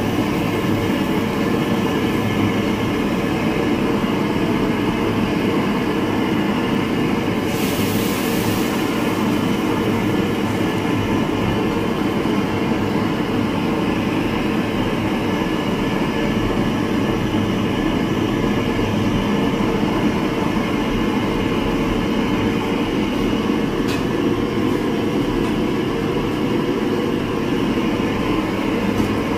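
Steady rushing noise of a gas burner under a wok, with a brief hiss about eight seconds in and a single sharp click near the end.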